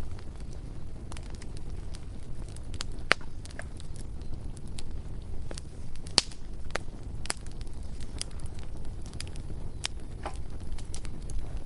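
A bonfire crackling: irregular sharp pops and snaps of burning wood, some much louder than others, over a steady low rumble of the flames.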